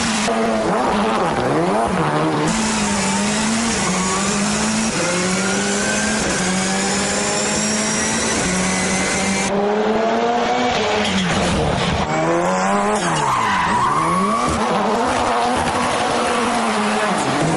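Ford Fiesta rally car drifting: the engine held high in the revs at a steady pitch, twice dipping and climbing back up, with the tyres squealing as it slides.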